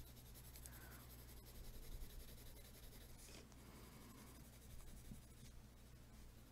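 Faint scratching of a colored pencil shading on drawing paper, over a low steady hum.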